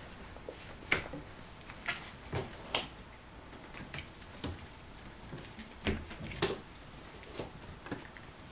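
Scattered light knocks and scuffles, about eight in all, from a litter of four-week-old Golden Retriever puppies wrestling and clambering over one another in their pen. The sharpest knocks come about a second in and again near six and a half seconds.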